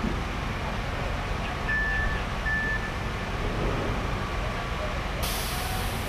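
Steady low diesel rumble of a concrete pump truck working a pour. A vehicle's backup alarm beeps twice about two seconds in, and a sharp hiss of released air starts near the end.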